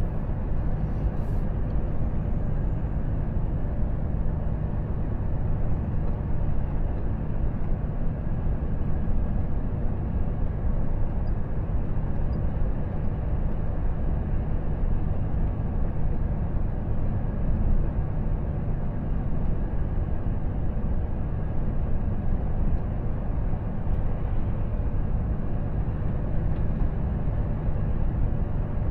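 Steady cab noise of a Volvo FH truck cruising at about 65 km/h: the diesel engine runs evenly under constant tyre and road noise, heard from inside the cab.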